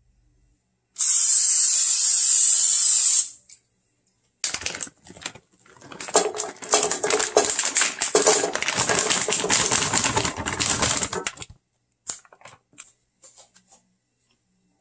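Cooking oil spray hissing into an empty nonstick frying pan for about two seconds, starting and stopping abruptly. Then halved Brussels sprouts tip out of a plastic bag and land in the pan in a dense run of clicks and rattles for about seven seconds. A few scattered clicks follow near the end.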